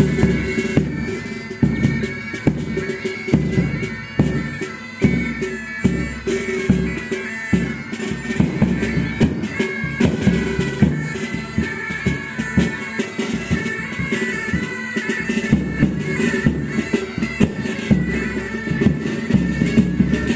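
Pipe band playing: bagpipes carry a tune over their steady drones, with drums beating throughout.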